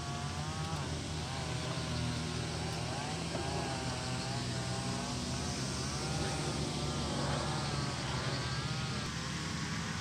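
Steady outdoor background: a low, even hum with a wavering, warbling tone that comes and goes above it, and no distinct events.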